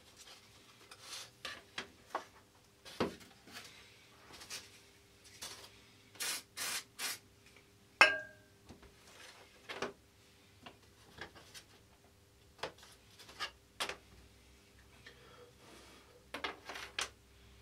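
Hands handling and fitting Depron foam and plywood model-aircraft parts on a cutting mat: irregular rubbing and scraping noises with light knocks. About eight seconds in, one sharper knock rings briefly.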